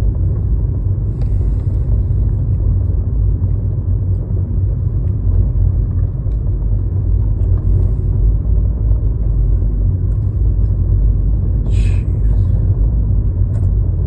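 Steady low rumble of a car's road and engine noise heard from inside the cabin, with a brief scratchy rustle near the end.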